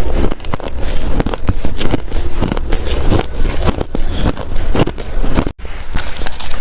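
Shaved ice being bitten and chewed close to the microphone: a dense run of quick, crackly crunches.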